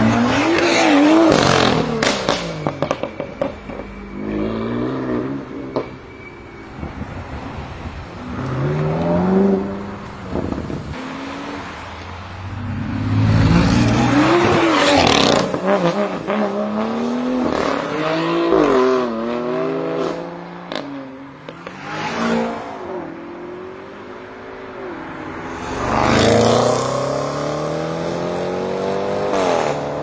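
Performance cars accelerating hard one after another, engines revving up through the gears with the pitch dropping at each shift and climbing again. Sharp exhaust pops and crackles sound between shifts, and a long rising rev builds near the end.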